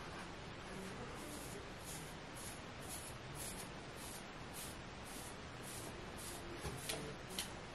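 Plastic comb raking through short, coily hair groomed for 360 waves: a faint, rapid series of scratchy strokes, about two or three a second.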